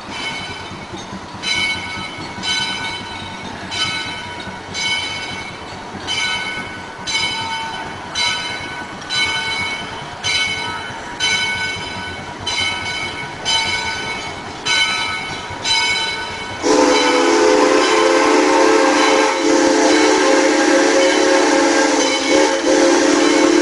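Steam locomotive's bell ringing, about one stroke a second, as the engine approaches. About seventeen seconds in, its steam whistle opens into a long, loud blast of several notes at once.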